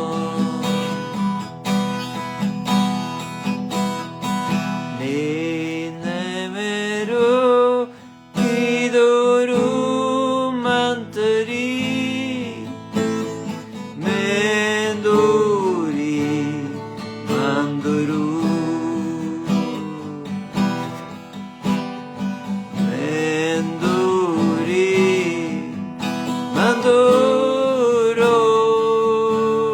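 Slow acoustic guitar music with held chords, and a melody line that glides and wavers in pitch above them.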